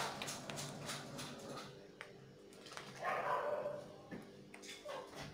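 A dog whining in short calls, the clearest about three seconds in.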